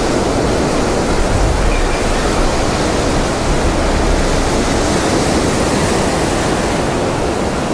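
Ocean surf breaking and whitewater washing up the sand close by, a loud steady rush with a deep low rumble.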